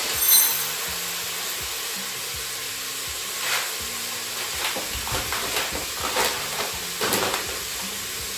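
Dried mixed lentils poured from a plastic bag into stainless steel measuring cups, rattling in a run of short rushes from about three and a half seconds in to about seven seconds, with a metallic clink of the cups near the start. Under it is the steady sizzle of peppers frying in oil in an electric pressure cooker on its sear setting.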